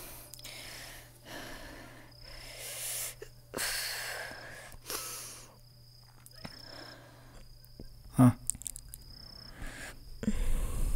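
Heavy, wheezy breathing of a sleeping man, one breath about every second, over a low steady hum. A single sharp knock comes about eight seconds in.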